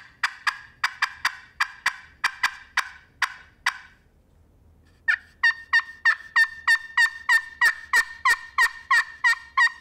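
Glass-surfaced pot-style turkey friction call worked with a wooden striker, imitating a hen turkey. It gives a run of short, sharp notes, then about a second's pause, then a fast, loud series of notes about three a second, each breaking from high to low. This is a loud locating call.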